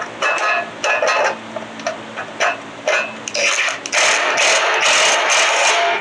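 Bolts being run in with a tool while a heat shield is fastened back on a small generator engine: several short mechanical bursts, then one continuous run about four seconds in.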